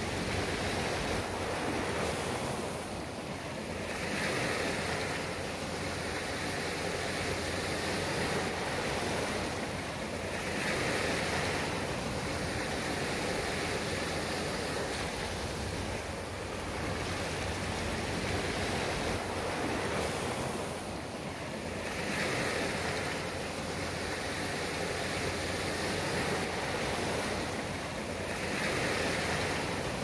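Small sea waves washing onto a sandy beach: a continuous hiss of surf that swells each time a wave runs up the sand, about every six seconds.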